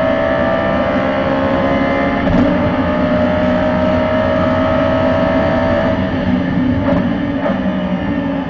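Audi R8 race car's engine heard from inside the cockpit at full throttle, revs climbing with an upshift into sixth about two seconds in. It then lifts off under hard braking, with downshifts near the end.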